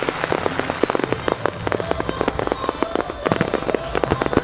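A fireworks display: aerial shells bursting and fans of comets fired from barges, making a dense, unbroken run of sharp bangs and pops, many each second.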